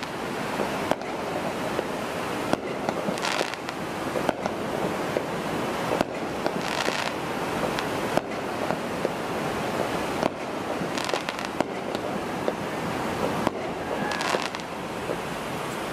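Fireworks going off, with sharp bangs every couple of seconds and several spells of crackling, over the steady wash of surf.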